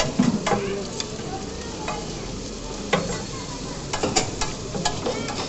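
A metal spoon clicking and scraping against a plate, with several sharp clicks scattered through, over a steady hiss of background noise.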